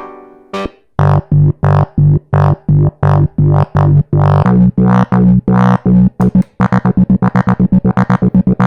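Arturia MicroFreak synthesizer playing a factory preset: short, staccato bass notes repeat in an even pattern about two and a half times a second, stepping up in pitch partway through. Near the end the pattern doubles to about five notes a second.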